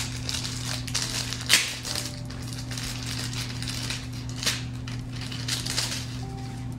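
Clear plastic bag crinkling and rustling in irregular bursts as it is opened by hand and a flat mat is worked out of it, the loudest crinkle about a second and a half in. A steady low hum runs underneath.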